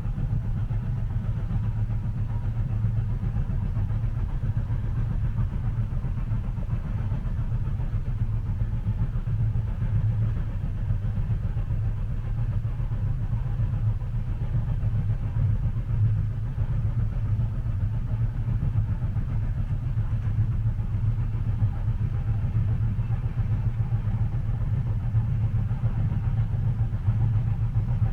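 Train cabin ambience: a steady low rumble of the carriage running along the rails, even and unbroken.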